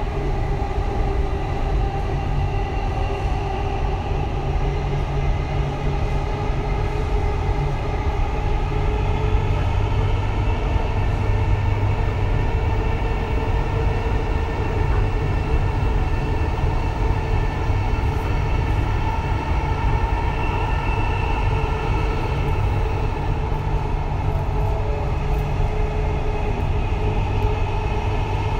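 Dubai Metro train running through a tunnel, heard from inside the front car: a steady rumble of wheels on rails with a whine that drifts slightly up and down in pitch.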